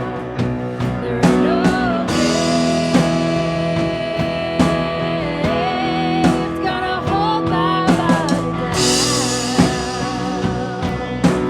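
A band playing a song: a sung vocal line of held, wavering notes over guitar chords and a drum kit keeping a steady beat.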